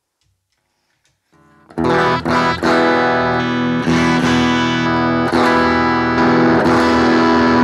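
Telecaster electric guitar on its bridge pickup played through a BOSS GT-1000 amp modeller, starting about a second and a half in: strummed chords left ringing between strokes, a level check after the amp model's volume was turned up.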